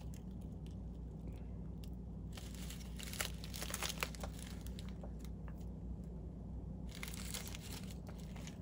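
Plastic crinkling as a clear bag of tinsel flash and its strands are handled. It comes in two crackly spells with small clicks, one about two and a half seconds in and another near the end, over a low steady hum.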